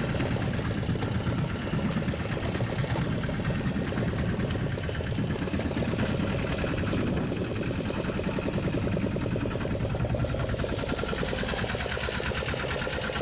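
Fishing boat's engine running steadily with an even, rapid chug.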